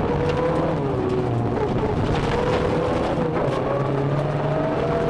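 Rally-prepared Toyota Corolla's engine running hard on a gravel stage, heard from inside the cabin. Its pitch climbs, dips briefly about two-thirds of the way in, then climbs again. Loud road and tyre noise runs underneath, with scattered sharp ticks.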